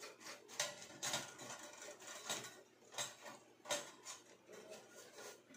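A small brush scrubbing dirt and cockroach debris out of the inside of a toaster, in short, uneven strokes.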